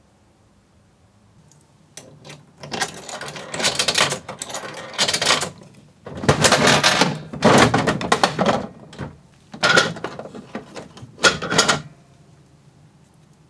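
Gachapon capsule vending machine's dial being turned by hand, its mechanism clicking and clattering in several loud bursts as a chocolate egg is dispensed.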